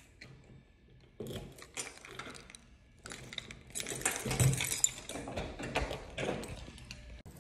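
Handling noise as a phone is moved around by hand: irregular rustling with light clicks and knocks, sparse at first and busier from about three seconds in.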